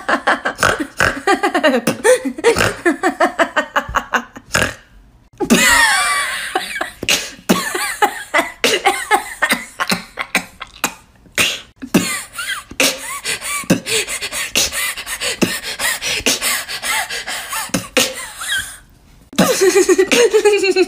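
A woman beatboxing a series of laughs, with rapid beatbox percussion woven into the laughing. First comes a snorting laugh, then a coughing laugh, then a fast giggle, with a short pause at each change.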